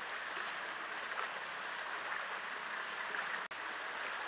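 Steady rushing and splashing of water in a fish-rearing pond. It cuts out for an instant about three and a half seconds in.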